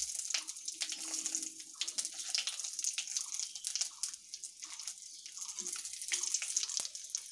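Dried red chillies, bay leaves and cumin seeds sizzling in hot oil and ghee in a metal kadai: a steady crackling hiss with many sharp pops and spits as the spices temper.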